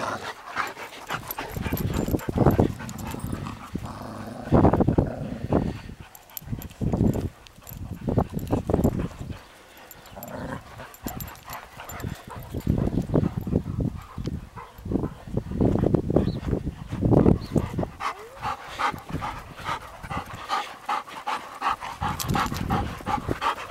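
Dogs playing at close range, with loud, irregular low rumbles and thumps through most of it; in the last few seconds a dog pants quickly and evenly right next to the microphone.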